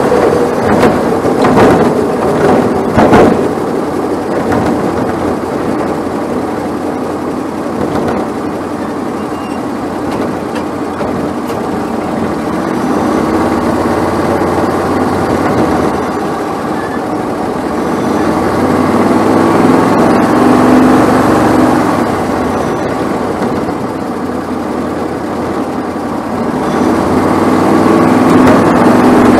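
Onboard sound of a Bandolero race car's Briggs & Stratton 570cc Vanguard V-twin engine running at low speed, with a few sharp knocks and rattles in the first three seconds. The engine settles into a steady drone, growing louder twice in the second half.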